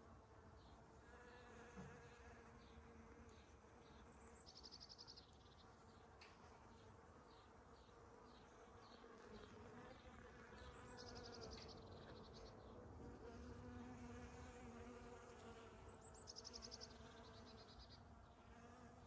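Bees buzzing faintly in flight, a steady hum that wavers slightly in pitch. A few short high trills and a string of light ticks are heard over it.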